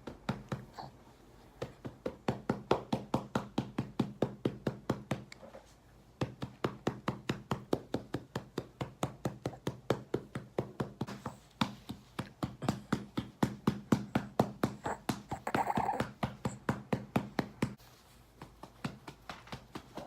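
Hand patting a baby's back in a steady rhythm, about four pats a second, to bring up a burp. There are two short breaks, and the patting stops about three-quarters of the way through.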